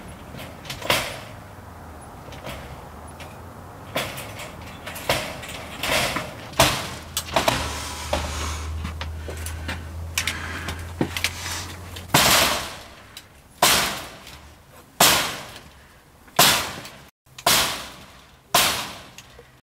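Repeated sharp bangs on a front door, each ringing out briefly. They come irregularly at first, then as heavier blows about every second and a half from about twelve seconds in. A low steady hum runs underneath until the heavier blows begin.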